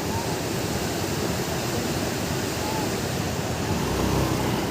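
Flash-flood torrent rushing, a steady dense noise of fast floodwater, with a deeper rumble swelling about four seconds in.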